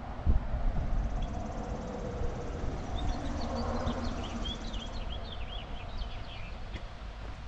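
Small birds chirping in short quick calls, most of them in the middle stretch, over a steady low rumble.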